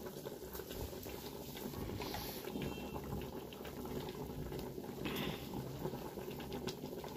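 Chunks of meat boiling in their cooking water in a large open aluminium pot: a steady bubbling with scattered small pops.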